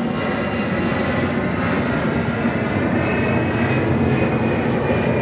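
Airplane engines running steadily as the aircraft climbs after takeoff, a loud even noise with a faint high whine.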